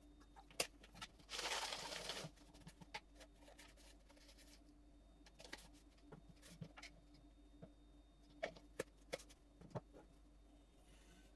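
Faint kitchen handling sounds while a powdered pre-workout drink is mixed in a glass: a brief rush of pouring about a second and a half in, then scattered light clicks and taps of a plastic tub, scoop and glass, with a quick run of five taps near the end.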